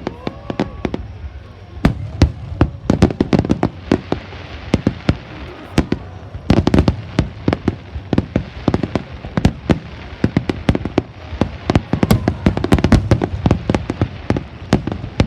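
Fireworks display: aerial shells bursting with rapid, overlapping bangs and crackling, in thick clusters at several points rather than as single reports.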